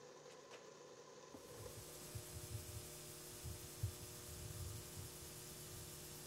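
Faint steady hum and hiss of background noise with irregular low rumbling, after a few faint ticks in the first second.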